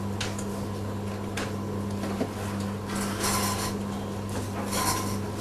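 Metal parts clinking and scraping as they are handled, with a clatter about three seconds in and another near the end, over a steady low hum.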